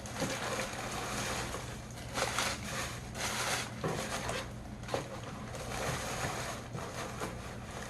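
Rustling and crinkling of packaging as items are handled and searched through in a box, in irregular swells, over a steady low electrical hum.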